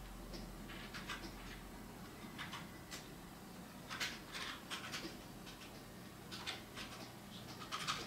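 Brush pen strokes on paper: short, irregular swishes, several a second, with a few louder ones about four seconds in and near the end.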